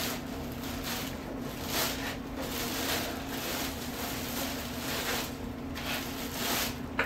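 Packaging being handled during an unboxing: a run of short rustling, scraping bursts of plastic and foam, over a steady low hum, with a sharp click at the very end.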